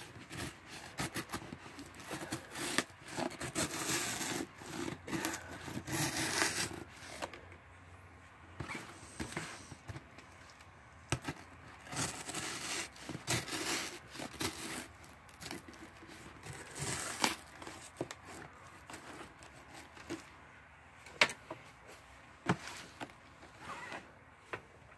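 Kitchen knife slitting and scraping along packing tape on a cardboard box, in a run of irregular scratchy strokes, with a few sharp knocks from the box being handled.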